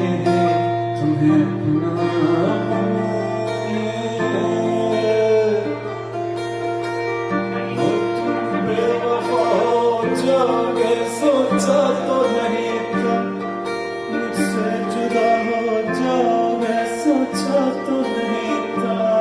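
Music at a sound check: plucked strings with singing over a steady low drone.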